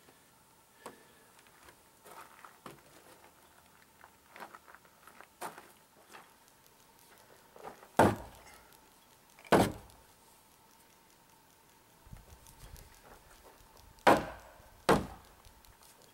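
Scattered light clicks and knocks, with four loud thuds in two pairs: two about a second and a half apart near the middle, and two close together near the end.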